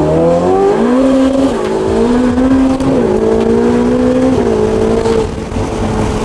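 Ferrari 488 Pista's twin-turbo V8 with a cat-less straight-through race exhaust at full throttle. The engine note climbs through the revs, then drops sharply at three quick dual-clutch upshifts, about a second and a half apart, before easing off near the end.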